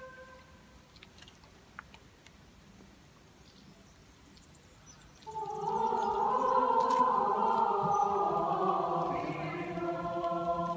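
A choir of young voices is silent for about five seconds apart from a few faint clicks. Then the voices come in together at once, loudly, holding a dense, unsteady chord that settles into clear sustained notes near the end.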